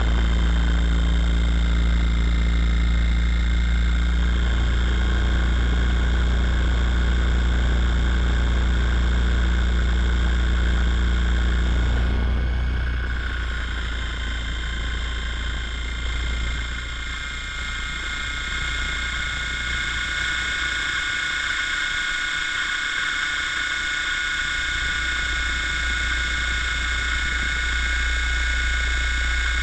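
Helicopter running steadily, heard from a camera on the rotor: a strong low drone with a steady high whine above it. A set of lower hum tones drops away about twelve seconds in.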